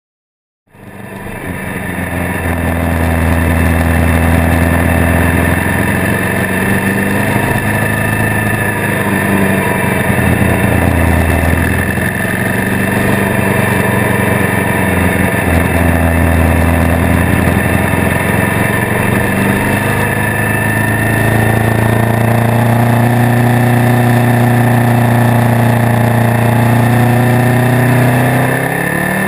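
Motorcycle engine running on the move, recorded from a camera mounted on the bike, with a steady rush of wind and road noise. It starts about a second in, and its pitch rises and falls with throttle and gear changes.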